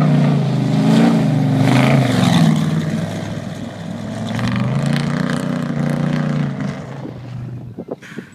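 Off-road race truck engine running hard as the truck drives past close by, its pitch rising and falling as it revs. The sound drops away near the end, with a few sharp ticks.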